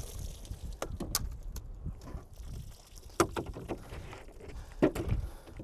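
Empty and water-filled plastic gallon jugs being handled and set down on a plastic folding table: a handful of hollow plastic knocks and thumps, over a steady low rumble.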